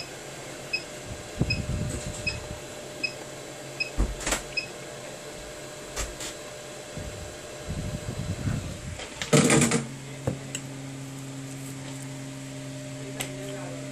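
Hot air rework gun blowing a steady stream of air to preheat a phone's display module, with faint regular ticks in the first few seconds. There are a few light knocks, then a short clatter about nine and a half seconds in, after which a steady low hum sets in.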